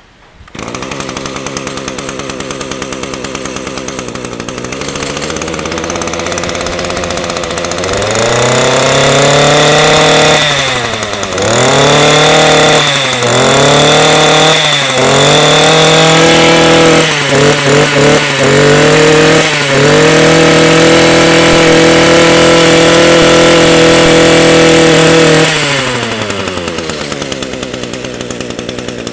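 Echo 22cc two-stroke brush cutter engine starting about half a second in and idling, then revved up and down repeatedly on the throttle trigger, including a quick burst of short blips. It is held at high revs for several seconds before dropping back to a steady idle near the end.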